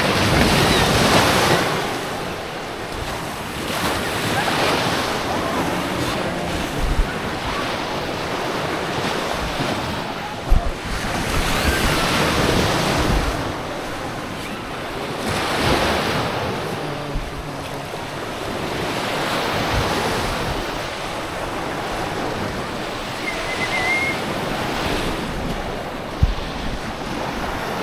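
Waves breaking and washing up a sandy lake shore, swelling every few seconds, with wind buffeting the microphone in a few low thumps.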